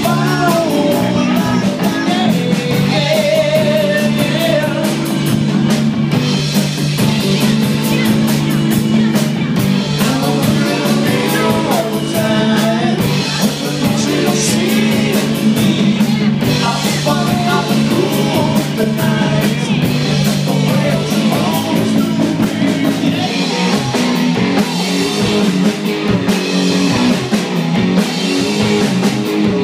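Live rock band playing loudly: electric guitar and drum kit with a singer over them.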